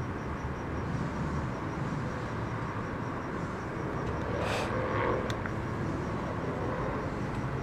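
Steady low outdoor background rumble, with a brief hiss about halfway through and a few faint clicks.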